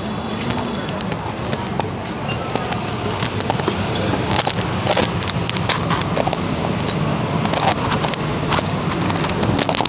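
Steady running noise of a Mumbai suburban local train heard inside a packed compartment, with many sharp clicks and rustles as the phone is pushed and rubbed against passengers' clothing in the crush at the door.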